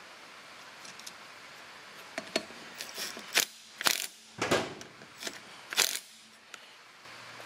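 Cordless driver run in several short bursts from about two seconds in, tightening the flywheel nut on a 1975 Honda MR50's crankshaft, over a steady patter of rain on a metal roof.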